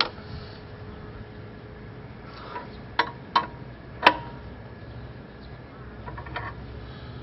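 A few sharp knocks and clicks as parts are handled while a motorcycle rear wheel is being fitted: one right at the start, two close together about three seconds in, a louder one about a second later, and a softer one near the end, over a steady faint hum.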